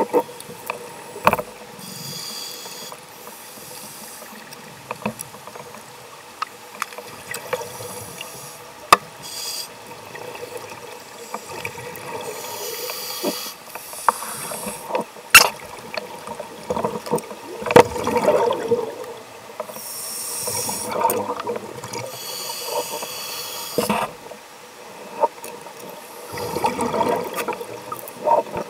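Scuba regulator exhalations heard underwater through a camera housing: bursts of bubbling hiss every few seconds, with sharp clicks and knocks of the housing being handled.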